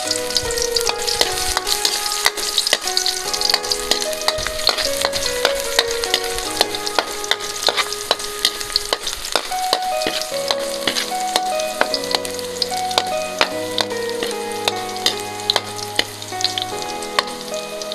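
Garlic sizzling and crackling in hot oil in a frying pan as it is stirred, a steady dense crackle. A background melody of held notes plays over it.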